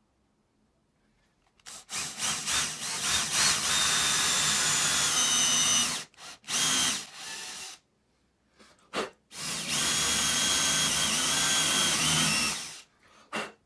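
Bosch cordless drill boring two holes into a thin plywood strip. Each hole starts with a few stuttering trigger pulses, then two to three seconds of steady whirring with a high whine, and the first is followed by a few short bursts.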